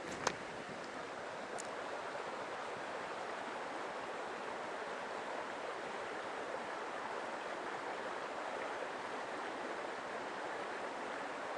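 Mountain stream water flowing steadily, an even rushing noise. A single sharp click sounds about a third of a second in, with a fainter tick a second or so later.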